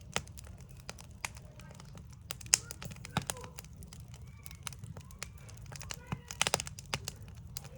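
Backyard wood fire crackling, with irregular sharp pops and a quick burst of louder pops about six and a half seconds in.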